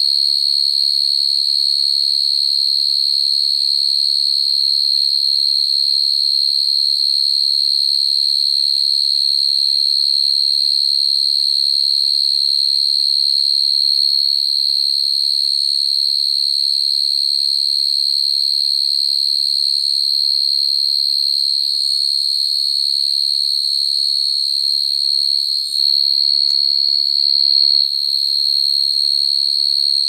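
Field crickets' calling song: males singing to attract females, a continuous high-pitched trill that holds steady, with a brief wobble in level a few seconds before the end.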